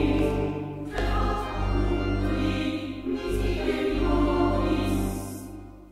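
Background choral music: a choir singing held notes over a steady low drone, fading out near the end.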